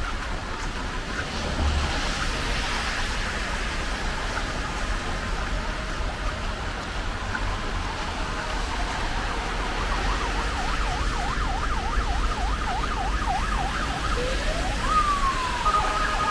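Emergency vehicle siren over the steady hiss of rain and traffic on a wet road: from about ten seconds in it yelps in a fast warble, about three cycles a second, then swoops up in one long rise and settles into a steady tone near the end.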